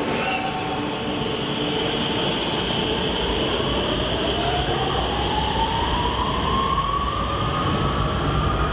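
Electric rail vehicle of the RET Rotterdam metro and tram network running and pulling away, its traction motors giving a whine that climbs steadily in pitch from about three seconds in over a steady rumble.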